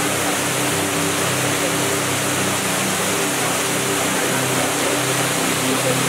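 Steady rush of flowing river water over rocks, with soft background music of held notes underneath.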